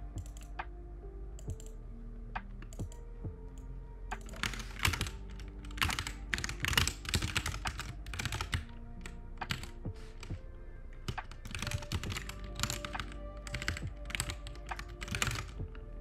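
Computer keyboard typing in quick bursts over soft lofi background music; the keystrokes start about four seconds in and are densest and loudest around six to eight seconds in.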